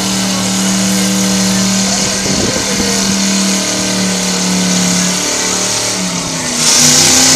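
Car engine held at high, steady revs while its tyres spin in a burnout. About six and a half seconds in it gets louder, with a harsh hissing rush joining in.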